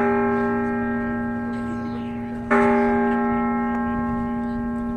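Large tower clock bell in Independence Hall's steeple tolling slow single strokes about three seconds apart. The previous stroke is still ringing and fading when a new stroke sounds about two and a half seconds in, which also rings on with a long hum, as when it strikes the hour.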